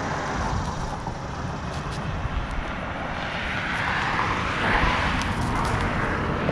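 Road traffic and wind: a steady rushing noise that swells about halfway through as a car drives past on the bridge.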